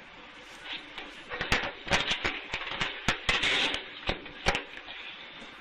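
Scattered small clicks and knocks of things being handled on a table, with a short rustle of paper a little after three seconds in.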